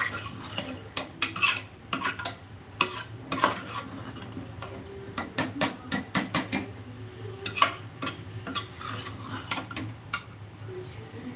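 Steel spoon stirring thick masala in a metal pressure cooker, scraping and clinking against the pot in quick, irregular strokes.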